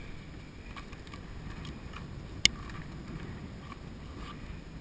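Handling clicks of shotgun shells and gear: several faint clicks and one sharp click about halfway through, over a steady low rumble.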